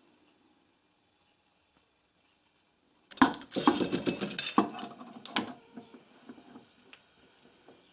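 Quiet at first, then, about three seconds in, a quick cluster of metallic clinks and wooden knocks lasting about two seconds. This is a spring-loaded metal drill guide being handled and set down on a plywood board. A few faint ticks follow.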